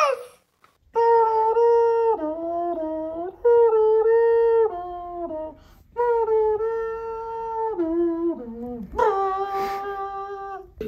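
A person humming a slow tune: held notes that step downward in short phrases, with a brief break about six seconds in.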